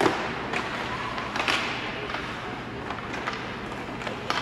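Ice hockey play in a rink: several sharp clacks of sticks and puck, the loudest right at the start, over a steady echoing arena noise.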